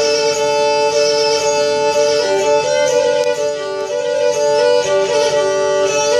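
Karpathian lyra bowed, playing a running melody that steps up and down over steady drone notes.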